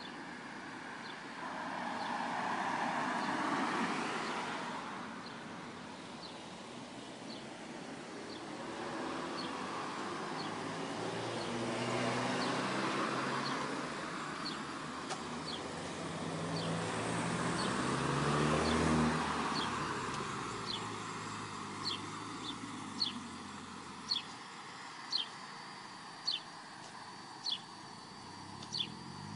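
Road traffic passing on the adjacent road, coming and going in three slow swells, the second with a vehicle's engine note. Over it, a short high chirp repeats about once a second, growing louder in the last several seconds.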